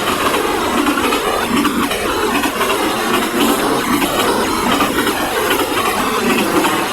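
Train passing close by: the loud, steady noise of its cars running along the rails.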